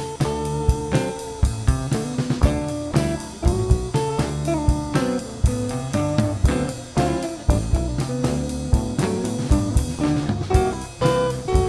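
Instrumental soundtrack music: guitar over a drum kit keeping a steady beat.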